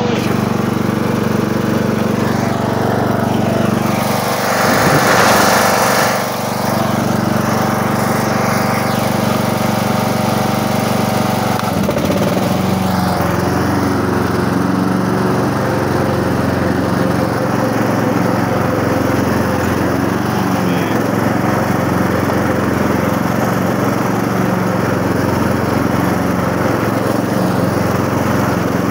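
Ride-on lawn tractor's engine running steadily while mowing grass. It gets briefly louder and hissier about four to six seconds in.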